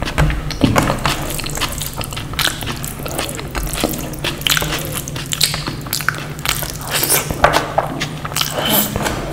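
Close-miked eating sounds: chewing with frequent irregular wet mouth clicks, over a steady low hum.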